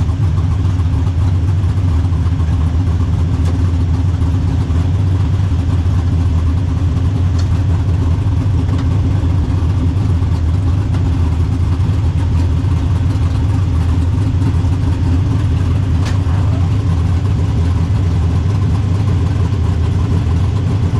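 Drag car's engine running steadily at low revs, a low, even engine note heard from inside the car.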